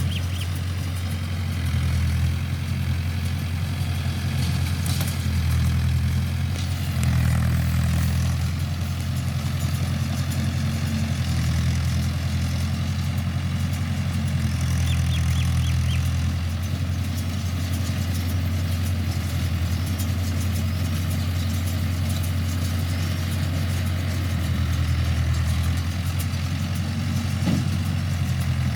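Mahindra tractor's diesel engine running steadily while driving a baler, its pitch shifting slightly now and then.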